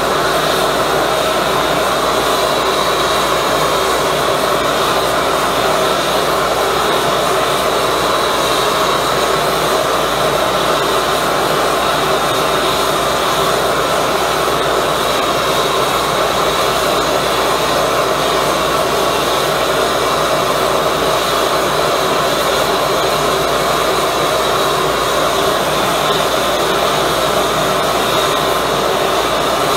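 High-velocity propane burner with compressed-air assist firing steadily, a loud, even rushing noise with no change in pitch or level.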